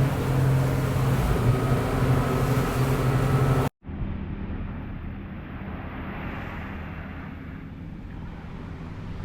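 A motor engine running steadily with a low hum. About three and a half seconds in, the sound cuts off abruptly and a quieter engine drone carries on.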